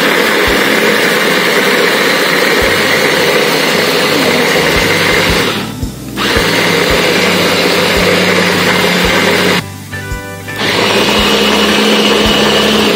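Small electric mini chopper blending chilies into a spice paste, its motor whirring in pulses. It cuts out briefly about six seconds in and again for about a second near ten seconds in, then runs again.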